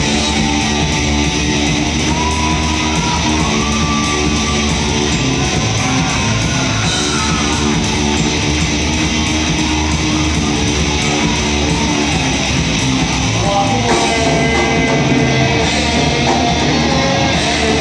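Heavy metal band playing live and loud: distorted electric guitars, bass and a fast, driving drum kit, kicking in at the very start.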